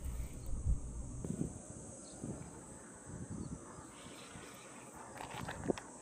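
Insects chirring steadily at a high pitch, under scattered low rustling and handling noises, with a short sharp click near the end.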